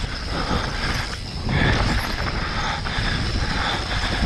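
Mountain bike clattering and rattling as it rolls fast downhill over a rocky dirt trail, with the tyres crunching on loose stone and a continuous low rumble.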